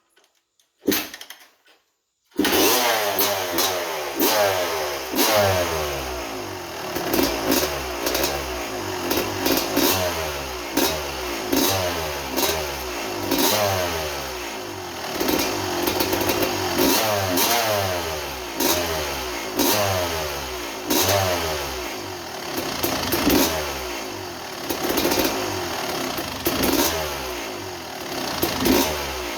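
1987 Kawasaki KX250's single-cylinder two-stroke engine, preceded by a couple of short knocks, comes in abruptly about two seconds in. It is then blipped again and again, the revs rising and falling every second or two, while its idle and air screw are being tuned.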